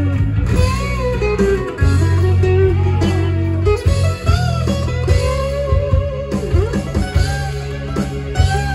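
Live music: an acoustic-electric guitar being played, with a steady low bass underneath and a bending melodic line.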